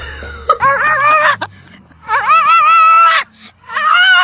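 Husky-type dog giving loud, high, wavering howl-yells, three calls in a row, the middle one the longest and loudest.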